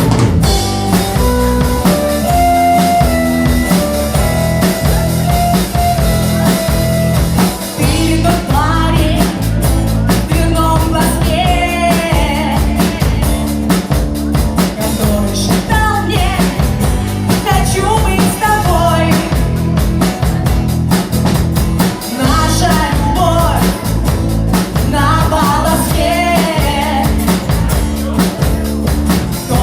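Rock band playing live with drum kit, bass and guitar in a steady groove. About eight seconds in, a wavering melody line comes in over it.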